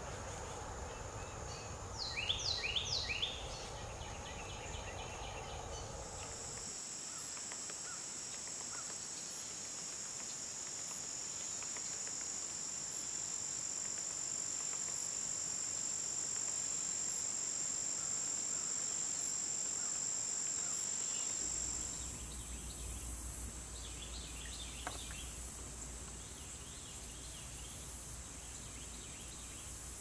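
Swamp woodland soundscape: a steady, high-pitched insect chorus of crickets or katydids drones throughout, changing its pitch and texture twice. About two seconds in, a bird gives a quick series of about four down-slurred whistled notes, and a few faint bird chips come near the end.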